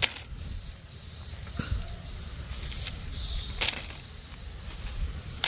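Hard plastic toy train track pieces clacking against each other and the plastic basket as they are gathered up: a few sharp clacks, one near the start, a louder one about three and a half seconds in, and one at the end.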